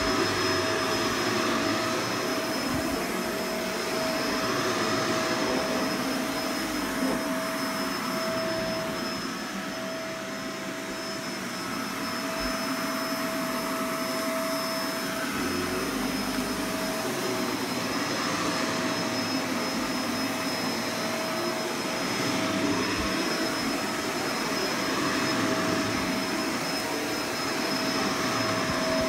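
Vacuum cleaner running continuously with a steady motor whine, its loudness swelling and dipping slowly, with a quieter stretch about a third of the way in.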